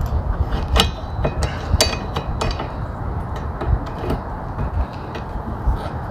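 Sharp plastic-and-metal clicks and small knocks of an old windshield wiper blade's release lever and clip being worked loose from the wiper arm, a quick run of them in the first two and a half seconds and scattered ones after, over a steady low rumble.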